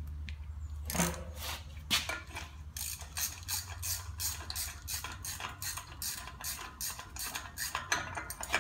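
Socket ratchet clicking in short, quick strokes as it runs the outer lock nut down on the front wheel-bearing spindle of a Toyota Land Cruiser 70-series swivel hub. The clicks start about a second in and come a few times a second.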